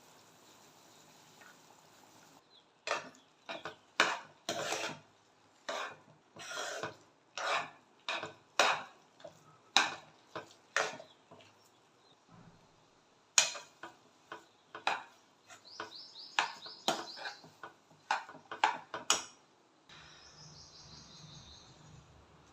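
Spoon clinking and scraping against cookware while upma is stirred or served, a long run of irregular sharp clinks that stops about three seconds before the end.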